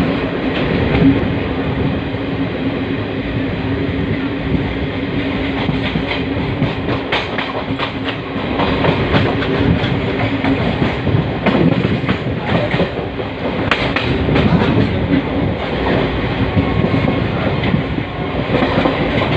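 Indian Railways express passenger train running on the track: a steady rumble with the wheels clacking over rail joints and points, the clacks thickest through the middle. A steady low hum runs under it for about the first half.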